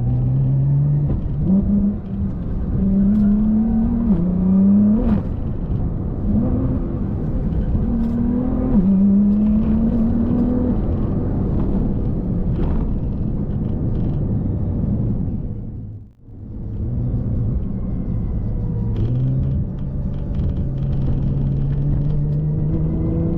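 Car engine pulling through the gears while driving: its note climbs and drops back at each shift several times, then it runs at a steadier, slowly rising pitch after a brief break partway through.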